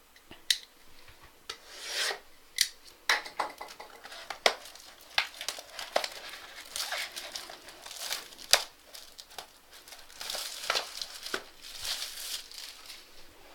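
Crinkling, tearing and rustling of plastic wrap and cardboard packaging as a sealed box of trading cards is opened, with irregular sharp clicks and scrapes.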